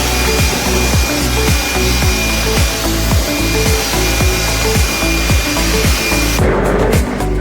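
Bowling ball accelerator making a steady rubbing, grinding noise with a thin high whine, the unusual sound of a fault in the machine. It stops about six seconds in. Background music with a regular beat plays throughout.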